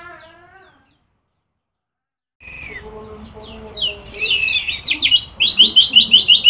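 Kecial kuning white-eye singing: a run of chirps fades out, and after a silent gap of about a second and a half a varied warbling song of high gliding notes starts. Near the end it breaks into a fast string of sharp repeated chirps, about six a second.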